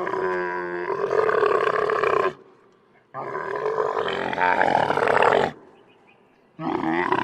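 Camel calling: two long calls of about two and a half seconds each with a short pause between, and a third call beginning near the end.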